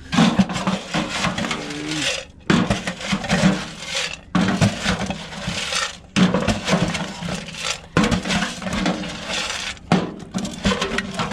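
Dry feed being scooped from a barrel and poured, in about six rushes of pouring each lasting a second or two, with light clinking as the grains or pellets land.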